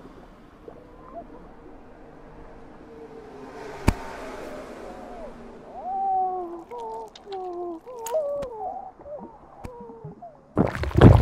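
Added swallowing sound effects for an animated character gulping down another whole: wavering, drawn-out moan-like tones with wet gurgles and scattered clicks, a sharp click about four seconds in, and a loud heavy gulp near the end.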